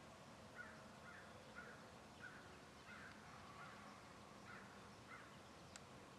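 Faint bird calling: a series of about eight short, rough notes, one roughly every half second, with a sharp click near the end.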